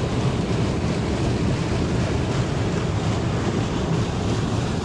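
Water gushing in a steady, heavy rush from a large outlet into a canal, churning and foaming where it hits the surface.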